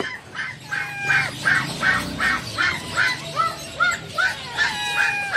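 Caged animals calling: a fast, even run of short calls, about four a second, with longer sliding cries among them.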